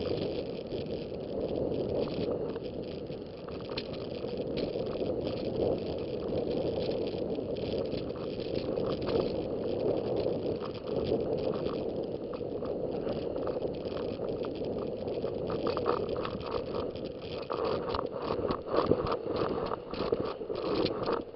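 Wind rushing over the microphone and a snowboard sliding over snow on a run, with many small knocks and rattles that come thicker near the end.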